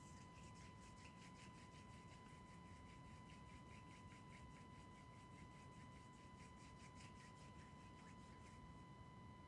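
Very faint Tibetan singing bowl: a steady high ringing tone with a light, fast rubbing sound over it that stops near the end.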